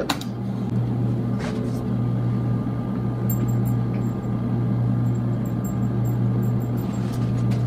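Power Mac G4 computer's fans running as a steady low hum while it works through a CPU and memory benchmark, with faint, high, irregular ticks in the middle.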